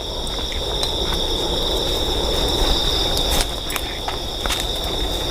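Crickets trilling in a steady night insect chorus, one continuous high tone, with a few faint clicks and a low rumble beneath.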